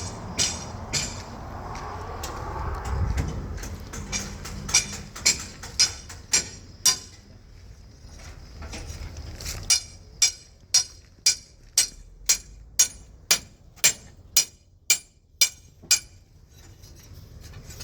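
Hammer striking metal over and over during the repair of an asphalt roller, each blow a sharp ringing clank. The blows are irregular at first, then fall into a steady rhythm of about two a second. A low rumble runs under the first few seconds.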